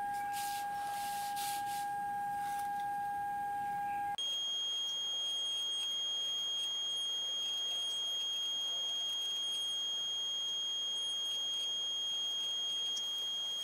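Steady electrical whine from the bench power equipment feeding the device: a mid-pitched tone for about four seconds, then an abrupt switch to a higher, thinner steady tone.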